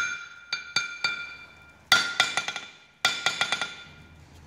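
Ball-peen hammer dropped onto a home-made 60 lb welded steel anvil and bouncing on it, in three clusters of quick rebound strikes about a second apart, each strike leaving the anvil ringing with a bright, clear tone. This is a rebound test of the freshly heat-treated, water-quenched anvil.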